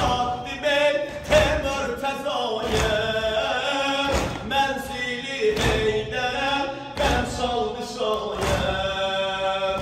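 Male reciter singing a Shia mourning elegy (noha) in a chanting melody. A heavy thump falls about every second and a half, in time with the chant.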